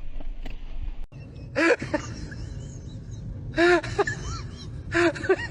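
Short voice-like calls, three loud bursts a second or so apart, each with a pitch that rises and falls, over a low rumble. They follow a sudden cut from wind noise about a second in.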